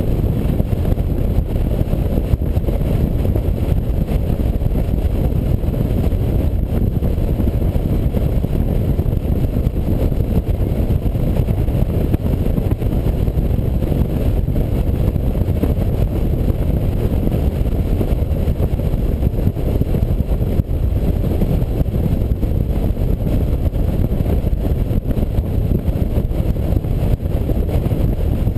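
Steady low rumble of a touring motorcycle cruising at road speed: wind buffeting the bike-mounted microphone over engine and tyre noise, with no change in pace.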